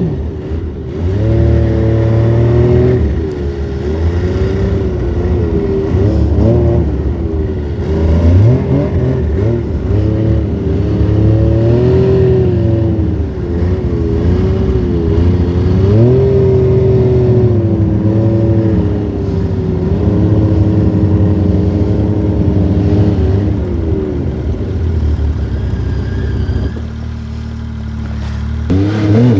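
Snowmobile engine revving up and down as it is ridden through deep powder snow, its pitch rising and falling continually. Near the end it eases to a lower, steadier note before revving up again.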